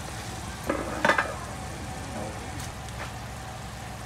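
Pot of catfish pepper soup boiling over a charcoal stove, a steady sizzling bubbling, with two short sharp sounds about a second in.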